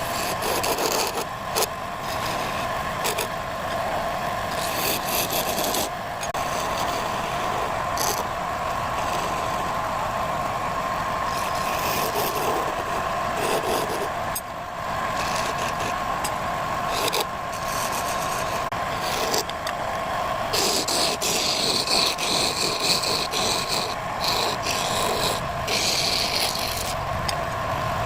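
A woodworking machine running with a steady whine while it works wood, with irregular scraping and rasping bursts that come thicker in the second half.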